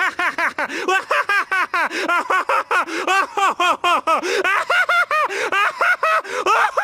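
A man's loud, prolonged belly laugh in a cartoon: a fast, unbroken string of "ha-ha-ha" syllables, about five a second.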